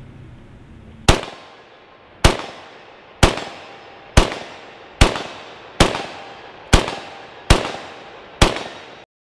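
Nine rifle shots from a Yugoslavian M59/66 SKS, a semi-automatic in 7.62×39mm, fired at about one a second, each with a short echoing tail. The sound cuts off suddenly just after the last shot.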